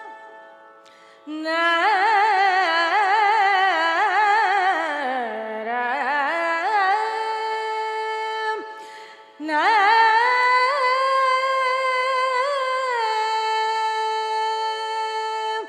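A woman singing slow, ornamented Indian classical vocal phrases over a steady drone. There are two long phrases of wavering notes: the first sinks low about halfway through and climbs again, the second holds a long note and then steps down.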